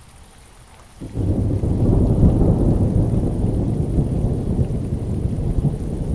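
Rain falling steadily, then about a second in a loud, low roll of thunder breaks in suddenly and keeps rumbling over the rain.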